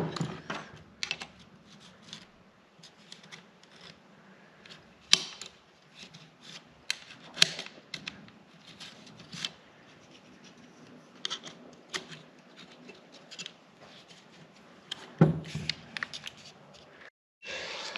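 Scattered light clicks and rustling from handling a cordless stapler, its staple magazine and staples, and an instruction sheet, with a few sharper clicks.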